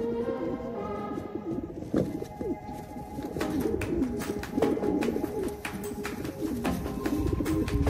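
Racing pigeons cooing, several low rolling coos in a row, over steady held tones of background music.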